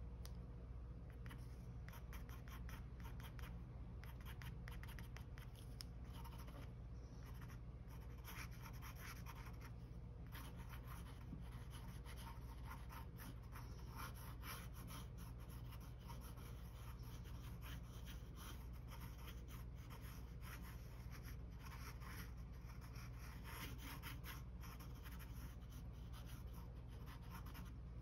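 Pen tip scratching across paper in quick, short scribbling strokes as loose hair lines are drawn, with brief pauses between runs of strokes, over a faint steady low hum.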